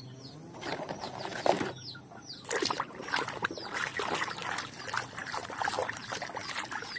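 Water splashing and sloshing as toys are washed by hand, in uneven bursts that pick up a couple of seconds in. Small birds chirp repeatedly in short falling notes.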